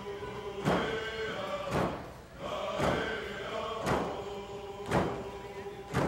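A group of Northwest Coast Native singers chanting a song in unison over hand drums, the drums struck together in a steady beat about once a second.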